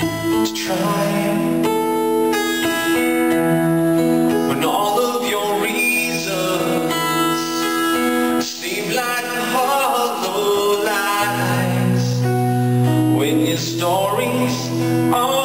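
Man singing to a strummed steel-string acoustic guitar in a live solo performance.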